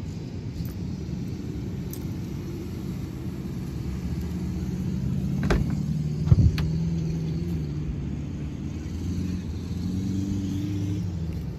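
Suzuki Jimny JB74's 1500cc engine running with a steady low idle rumble. A car door clicks and shuts with a thump about six seconds in.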